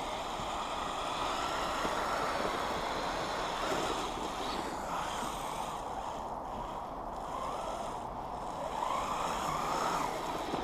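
Kyosho Blizzard FR radio-controlled tracked snow machine running under throttle. Its electric drive and tracks make a steady whine that swells up and down several times as the throttle changes.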